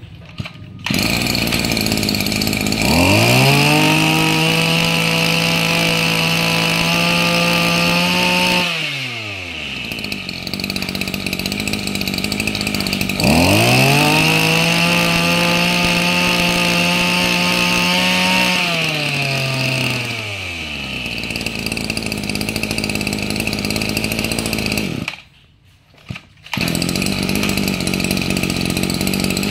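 Maruyama MB2320 brush cutter's 23cc two-stroke engine catches about a second in and idles. It is revved up twice, each time held at high speed for about five seconds before dropping back to idle. Near the end it drops out for about a second and then runs again.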